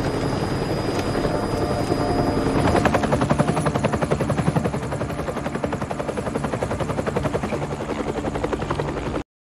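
Helicopter rotor chopping: a rapid, even beat of blade slaps over engine noise. It is loudest a few seconds in and cuts off abruptly near the end.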